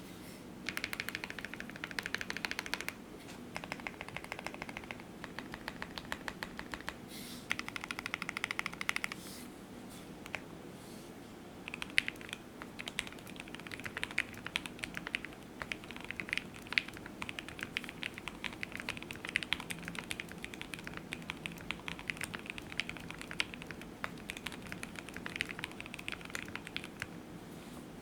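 Typing on a Keychron Q1 v2 mechanical keyboard with lubed Everglide Aqua King linear switches on an FR4 plate, no foam, and Domikey Obsidian keycaps: fast runs of keystrokes in short bursts, a pause of about two seconds, then steady continuous typing with the odd louder stroke.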